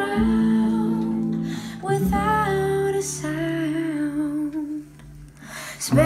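Vinyl record played on a turntable and heard through bookshelf speakers in the room: quiet acoustic guitar music with a soft female voice singing. The music drops quieter for a moment about five seconds in, then comes back fuller.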